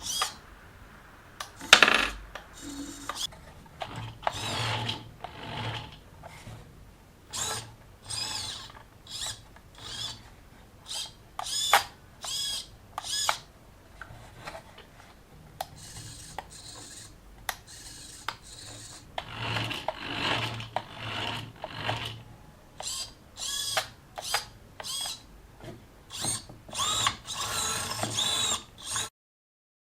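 Small electric motor whirring in many short bursts, some with a whining pitch, mixed with clicks; it cuts off near the end.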